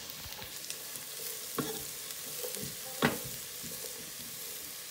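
Diced onions sizzling in hot olive oil in a pot while being stirred, with two sharp knocks of the utensil against the pot, the louder about three seconds in.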